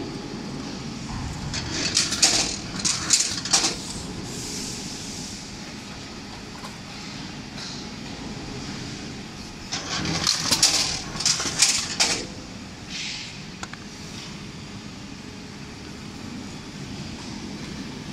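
PKE-800 semi-automatic book case making machine running its cycles: two spells of clattering and hissing, about two seconds in and again about ten seconds in, over a steady machine hum.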